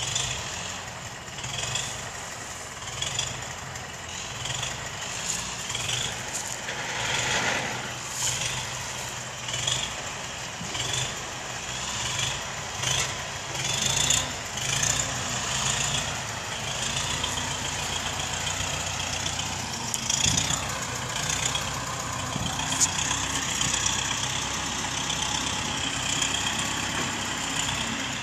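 Universal 650 tractor's four-cylinder diesel engine running while hitched to a load of felled logs, with its pitch rising about twenty seconds in.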